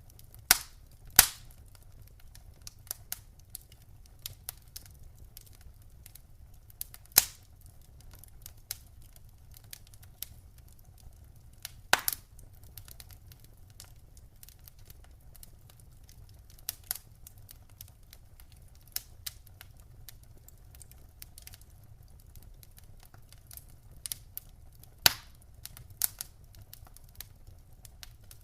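Wood fire crackling in a fireplace: irregular sharp pops and snaps, a few loud ones standing out among many small crackles, over a faint low rumble.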